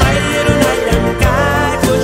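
Andean folk music: quena flutes playing a wavering melody over a steady drum beat.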